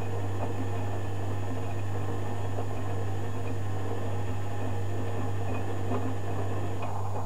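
Zanussi FJ1093 Jetsystem front-loading washing machine running its cotton wash: the drum turns wet laundry through the water over a steady low hum from the machine.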